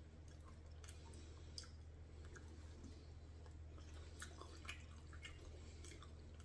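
Near silence with faint, scattered small clicks of eating: a fork working in a foam takeout container, and chewing.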